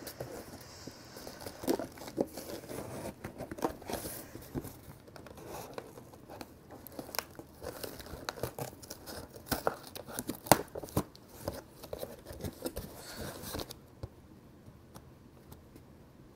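Box cutter slitting packing tape on a cardboard box, with scattered scrapes, clicks and rustles as the box is handled and turned. It goes faint for the last couple of seconds.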